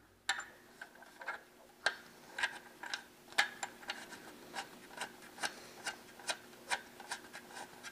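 Small metal clicks and rubbing from a PL-259 coax plug's knurled coupling nut being screwed by hand onto the SO-239 antenna socket of a radio amplifier. The ticks come irregularly, about two or three a second.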